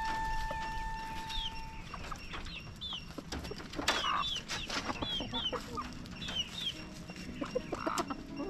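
Free-range village chickens clucking, with many short high chirps repeating throughout. A long held call ends about two seconds in.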